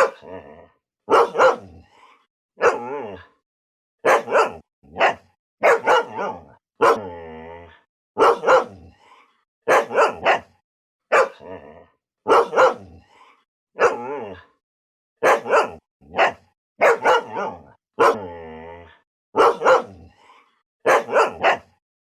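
Pit bull barking angrily in quick clusters of two or three barks, about every second and a half. Twice, about 7 and 18 seconds in, a drawn-out growling bark about a second long comes between the clusters.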